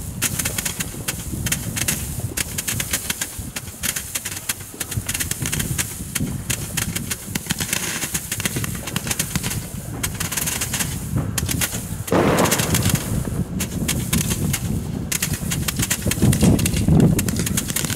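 Chained roman candles firing in quick succession: a continuous run of sharp shots, many a second, as the stars are launched. About twelve seconds in the shots get louder and fuller.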